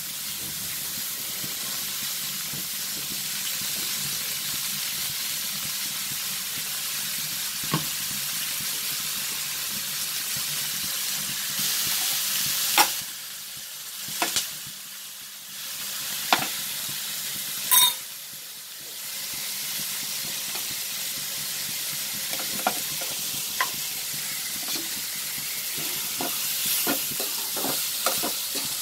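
Sliced onions sizzling steadily as they sauté in sesame oil in a metal wok, softening with salt. There are a few sharp clinks, and a metal spatula stirring and scraping the onions near the end.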